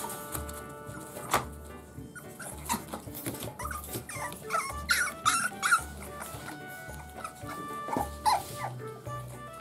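Frenchton puppy whining and whimpering in short high calls, with a few sharp clicks, over background music with a steady bass line.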